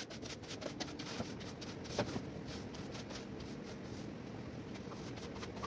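Broom sweeping a floor: a run of short, scratchy bristle strokes over a low steady hiss.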